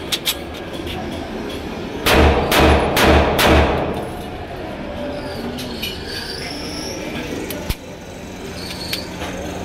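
A Beretta 2-pattern .30 bore (7.62×25 mm) pistol being test-fired: four shots in quick succession, about half a second apart, from about two seconds in, each echoing off the brick-lined pit it is fired into. A few small clicks and a single knock are heard later.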